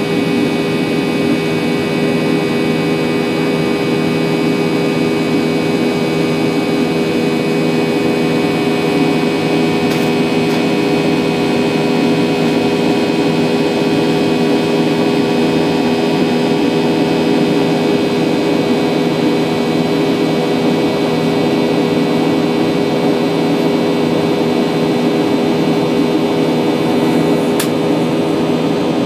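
Steady jet-engine noise of a Boeing 737-800's CFM56-7B engines, heard from inside the passenger cabin: a loud, even hum with several steady whining tones above it. Two faint clicks come once about a third of the way in and once near the end.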